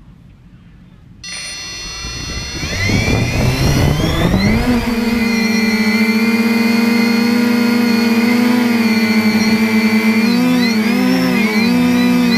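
3DR Iris+ quadcopter's electric motors and propellers starting up about a second in, rising in pitch over a couple of seconds, then holding a steady high whine as it climbs, the pitch wavering up and down near the end. This is the takeoff that the owner says followed a lost GPS lock, with no control over the drone.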